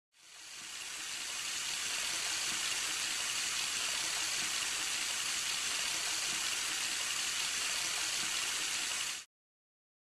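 Bathroom tap running into a sink: a steady rushing hiss that fades in over the first second or two and cuts off abruptly near the end.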